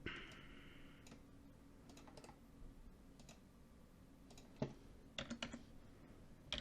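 Sparse keystrokes on a computer keyboard: a few single clicks spread out, then a quick run of clicks about five seconds in.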